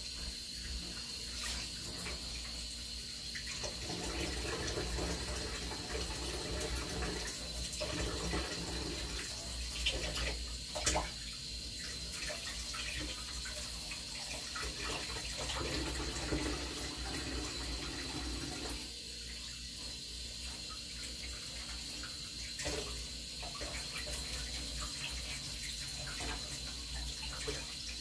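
Kitchen sink tap running, with water splashing over gloved hands as something is washed under it. Two sharp knocks come about ten and eleven seconds in.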